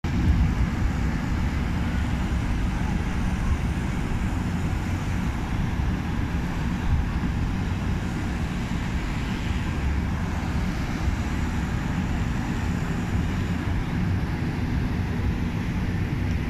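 Wind buffeting the phone's microphone: a steady, gusty low rumble over an even outdoor background hiss.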